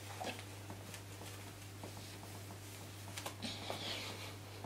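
Faint rustling of a synthetic wig's fibres as it is pulled on and worked into place by hand, with a few soft clicks and a brief swish near the end as the hair is tossed. A steady low electrical hum lies underneath.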